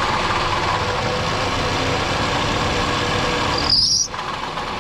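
Toyota Camry 2.4 engine running at idle with its drive belt under tension, giving the knocking rattle that the mechanic puts down, with high likelihood, to a failing water pump. A brief high squeak comes about four seconds in.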